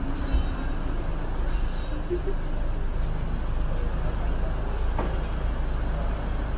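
Hong Kong double-decker electric tram heard from its upper deck: a steady low rumble, with a faint high squeal in the first two seconds and a single short click about five seconds in.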